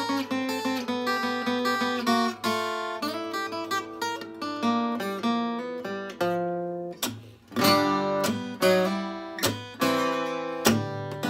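Solo flat-top acoustic guitar picked in a country-blues style, an instrumental break with no singing. The notes stop briefly about six and a half seconds in, then the picking starts again louder.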